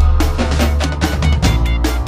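Background music with drums: a quick, steady beat with a heavy bass line.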